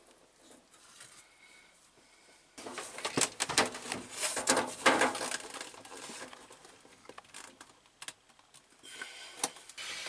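Black plastic drain pipe and trap fittings being handled and worked together by hand: a run of irregular scraping, rubbing and clattering knocks starting a few seconds in, easing to scattered clicks and picking up again near the end.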